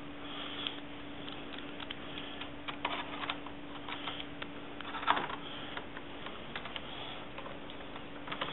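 Scattered small clicks and taps as the memory-access cover is fitted back onto a 2011 27-inch iMac and its Phillips screws are started, with a sharper knock about five seconds in, over a steady low hum.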